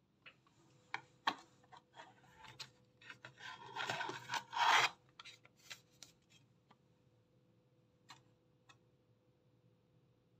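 Handling noise: hard plastic rubbing, scraping and clicking, with a denser scraping stretch about four to five seconds in and two light clicks near the end.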